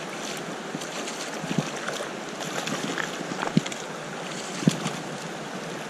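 Creek water running, a steady rush, with a few short knocks, the loudest about three and a half and four and a half seconds in.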